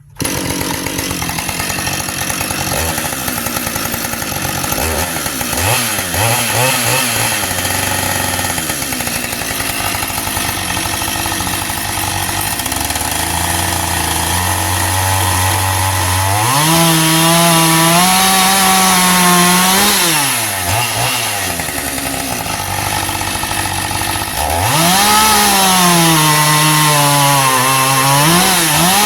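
Husqvarna 550 XP two-stroke chainsaw running unevenly at low speed for about the first half, then revved to full throttle to cut wood, its pitch dipping under load. It falls back to a lower speed about two-thirds through, then revs high again for a second cut near the end.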